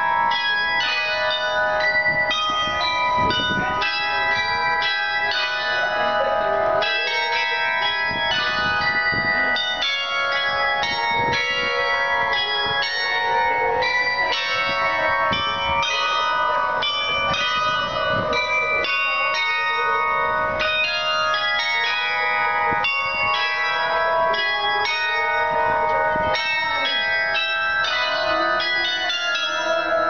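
A ring of large tower bells, the Swan Bells, being rung in steady succession, each stroke's tone ringing on over the next so the notes overlap without a break.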